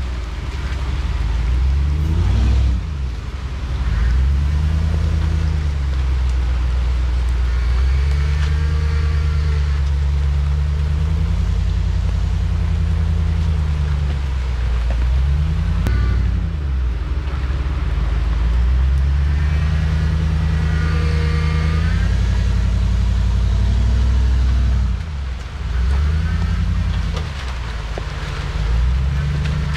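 Ford Raptor pickup's engine working over a rough off-road track, its pitch rising and falling again and again as the throttle is worked.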